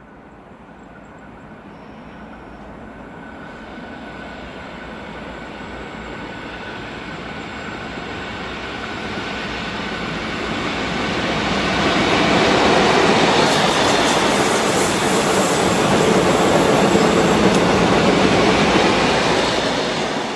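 Train headed by V/Line P class diesel locomotives P18 and P14 approaching and passing, a broad rumble of engines and wheels on rail. The sound grows steadily louder, is loudest in the second half, and falls away abruptly at the very end.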